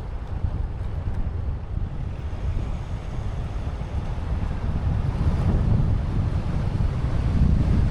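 Wind buffeting the microphone over the low rumble of a Kia Sportage driving along a road, growing a little louder in the last few seconds.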